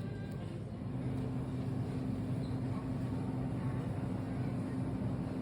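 Steady low drone of a vehicle on the move, heard from inside: engine and road noise with a low hum that settles in about a second in.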